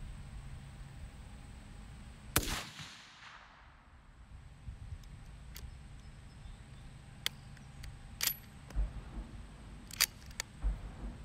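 A single shot from a 6.5 Creedmoor Mossberg MVP LC bolt-action rifle about two seconds in, echoing briefly. It is followed by a few sharp clicks of the bolt being worked, two close together near the end.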